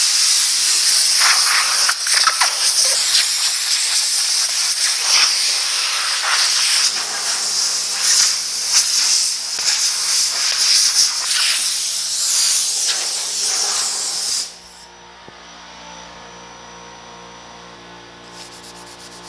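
Compressed-air blow gun hissing as dust is blown off the primed sheet-metal truck bed, the blast rising and falling in strength. It cuts off sharply about three-quarters of the way through, leaving a low steady hum.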